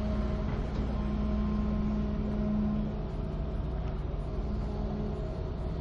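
Hitachi hydraulic excavator's diesel engine running steadily close by, a little louder for the first three seconds, then easing off.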